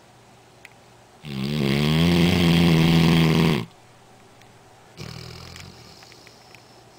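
Black Labrador retriever snoring really loud: one long, pitched snore starting about a second in and lasting about two and a half seconds, then a shorter, quieter snore about five seconds in.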